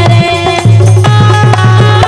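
Instrumental break in a folk song: a harmonium holds steady chords over a fast hand-drum rhythm, and the singer's last note ends right at the start.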